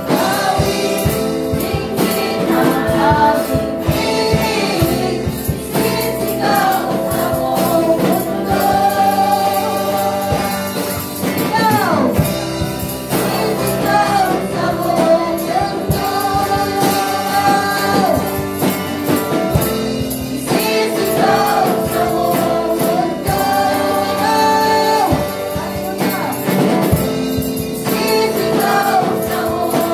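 Live gospel worship music: several women's voices sing a praise song together, with sustained, wavering notes, over an electric guitar and drum band.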